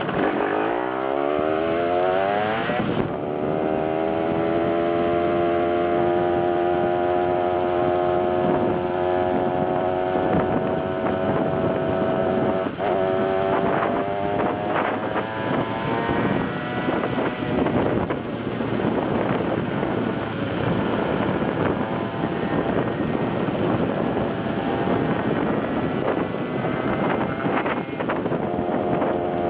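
Malaguti Fifty Top moped's 50cc two-stroke engine under way. It revs up steeply over the first three seconds, then holds a steady high buzz. Through the second half the note is rougher and less steady, with more noise, and it settles into a clear steady buzz again near the end.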